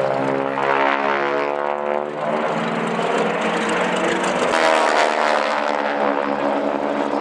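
Radial engines of two Boeing Stearman wingwalking biplanes droning as they fly a display, the engine note sweeping down in pitch as they pass by, twice.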